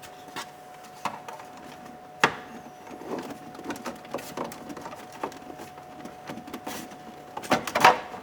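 Plastic steering column trim panels being handled and fitted into place: irregular clicks, taps and rattles, with a sharp knock about two seconds in and a louder cluster of clatter near the end.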